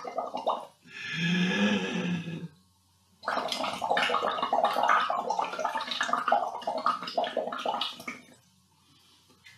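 Bubbling and gurgling from air blown through a drinking straw into water in a stainless steel saucepan. It comes in blows: a lower, more tone-like gurgle about a second in, a short pause, then a longer stretch of bubbling that fades out about eight seconds in.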